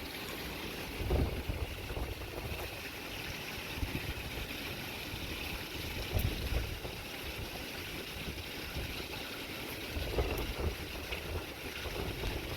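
Wind buffeting the microphone in uneven gusts, over a steady outdoor hiss.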